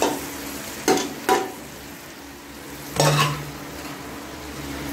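Meat and freshly added chopped tomatoes frying in an aluminium pressure-cooker pot, a steady sizzle. A metal ladle and bowl clank against the pot four times: at the start, twice about a second in, and once more, louder and briefly ringing, about three seconds in.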